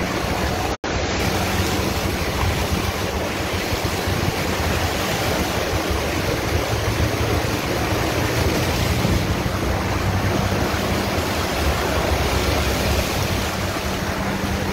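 Steady rushing noise of a four-wheel-drive car driving through floodwater: tyres churning water, air buffeting the microphone, and a low engine hum underneath. The sound cuts out for an instant about a second in.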